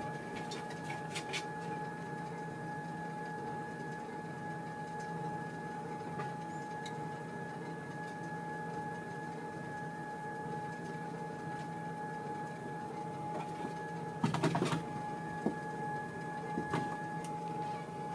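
Treadmill running with its belt moving slowly: a steady motor hum with a thin high whine. A quick cluster of clicks and taps comes about three-quarters of the way in, and another tap a couple of seconds later.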